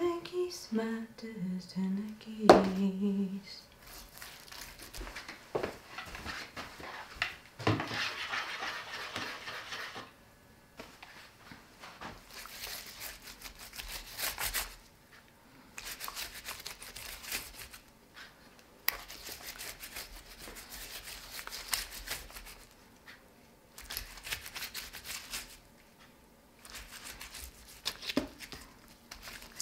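A woman humming, stopping about three seconds in, with one sharp click near the end of it; then, off and on, gloved hands rubbing a wet marinade into a raw rack of beef ribs.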